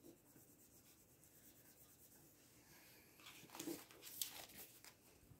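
Quiet paper handling: a sticker being smoothed onto a planner page, then a paper sticker book rustling and crackling in short bursts from about three seconds in.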